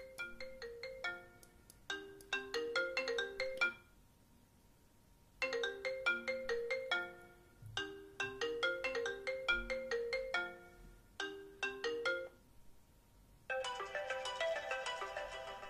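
iPhone ringtones from iOS 7 GM previewing in turn: short melodic phrases of quick pitched notes that stop and restart with brief gaps. A different, denser ringtone starts near the end.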